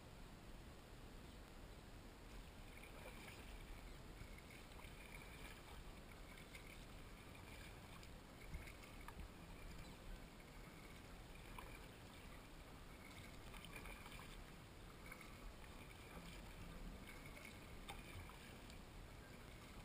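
Faint sounds of a kayak paddled on calm water: the paddle dipping and dripping, with a few small clicks.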